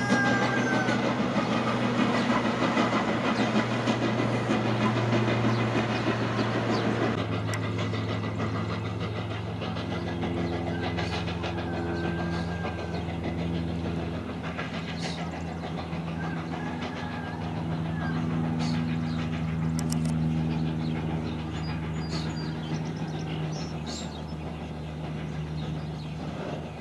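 Full-size Thomas the Tank Engine steam tank locomotive running past with its coaches, blowing a loud hiss of steam from its open cylinder cocks that stops about seven seconds in. After that it runs on more quietly, a steady low hum with occasional wheel clicks.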